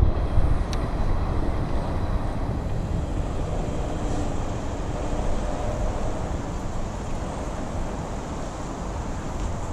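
Steady low outdoor rumble, with a brief click near the start.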